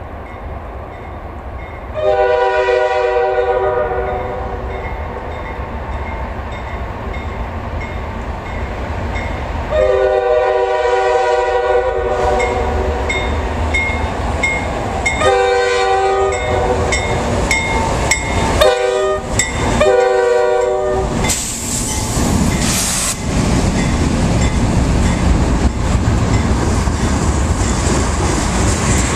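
CSX diesel freight locomotives approaching and passing with their air horn blowing: two long blasts, then several shorter ones. Under the horn are the low rumble of the engines and the clatter of the freight cars rolling by.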